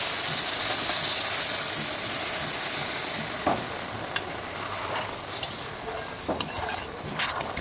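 Water poured into a hot kadai of frying bottle gourd and tomato hisses loudly, then settles after about three seconds into a steady sizzle. A perforated metal skimmer ladle stirring the vegetables clicks and scrapes against the pan now and then.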